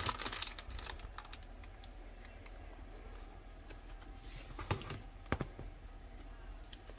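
Small clicks, taps and light rustling from handling coin albums and turning their cardboard pages, with a cluster of clicks at the start and two sharper clicks about five seconds in.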